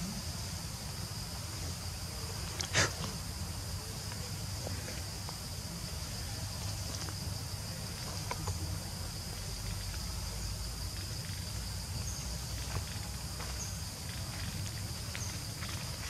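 Steady high-pitched insect drone over a low rumble, with a single sharp click about three seconds in and a few faint clicks and rustles.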